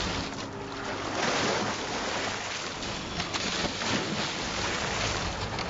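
Wind on the microphone and sea water washing around a dive boat, with a low engine hum that grows stronger near the end.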